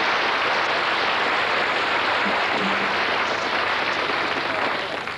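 Studio audience applauding, a steady wash of clapping that fades away near the end.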